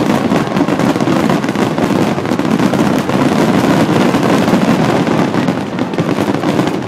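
Finale barrage of aerial fireworks shells bursting in quick succession, merging into a continuous loud rumble with dense crackling from crackle stars. It eases off right at the end.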